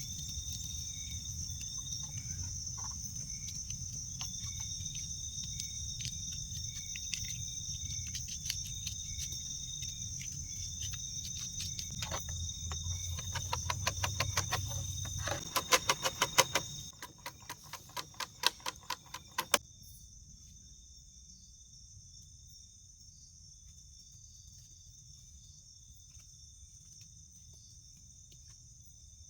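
Forest crickets and other night insects trilling steadily, with one insect repeating short chirping phrases. Under them is a low rumble, and in the middle a quick run of sharp clicks and snaps, the loudest sounds. These stop suddenly about two-thirds of the way through, leaving only the insects.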